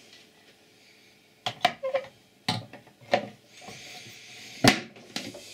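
Hard objects being handled on a wooden desk: a run of separate knocks and clicks, then a brief scrape of something slid across the wood, followed by a single loud knock near the end.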